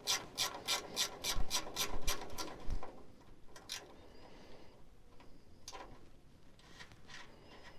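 Ratchet wrench clicking steadily, about four clicks a second, as a 9/16 nut is spun off a truck frame; the ratcheting stops about three seconds in, leaving a few scattered clicks.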